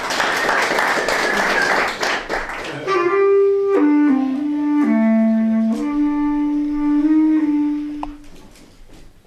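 Applause for about three seconds, then a bass clarinet plays a short, slow phrase of a few held notes. The notes step downward and settle back, and the phrase ends about eight seconds in.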